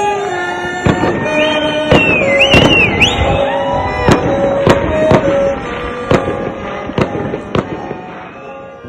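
Fireworks banging repeatedly, roughly once a second, over live music, with a high wavering whistle about two seconds in; the bangs and music fade towards the end.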